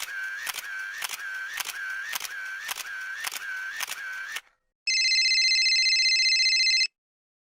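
Sound-effect clip: a click with a short beep repeats about twice a second for some four seconds. After a brief gap comes a steady electronic buzz of about two seconds, which cuts off sharply.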